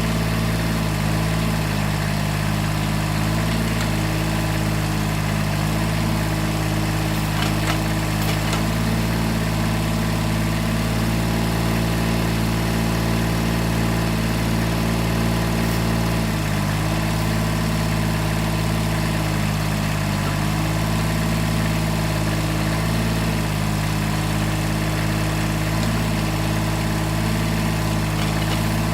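1978 Kubota B6100E's small three-cylinder diesel engine running steadily at part throttle while it powers a backhoe's hydraulics. Its pitch shifts slightly a few times as the load changes, and a few faint clicks come about eight seconds in.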